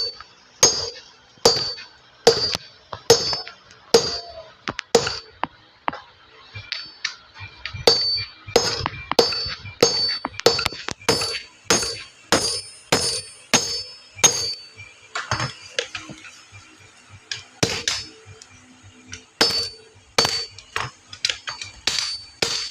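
Hand hammer striking hot steel on an anvil, a steady series of ringing blows. They come about one a second, quicken to around two a second from about 8 to 14 seconds in, then slow again.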